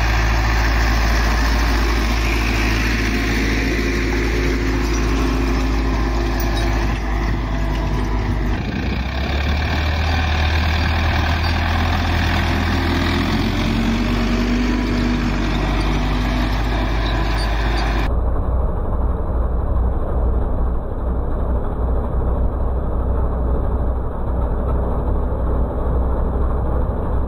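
Ursus C-360 tractor's four-cylinder diesel engine running steadily under load while pulling a field cultivator. The sound changes abruptly about 9 seconds in and again at about 18 seconds, where it turns duller with the treble cut off.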